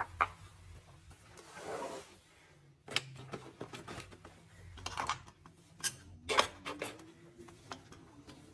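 Scattered sharp clicks and knocks with some rubbing and rustling, over a faint low hum: hands handling furnace parts.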